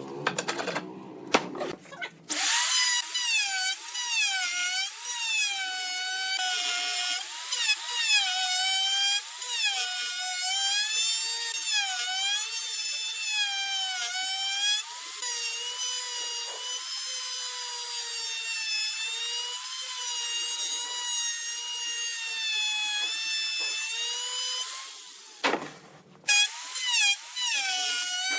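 Handheld electric power tool working wood, its motor whining with a pitch that keeps dipping and recovering as it is pushed into the work and eased off. It stops briefly near the end and starts again.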